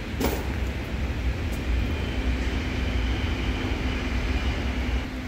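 Steady low machinery rumble, with a sharp click just after the start and a faint high steady tone joining in the second half.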